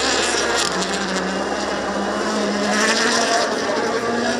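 World Rally Championship car's engine running hard at high revs on a gravel stage, its note climbing steadily in pitch, over a rushing haze of noise.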